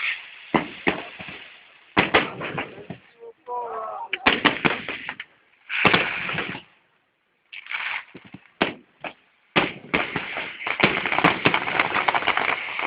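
Fireworks display: aerial shells bursting in quick clusters of loud bangs with crackling between them, a brief lull about seven seconds in, then a dense volley near the end.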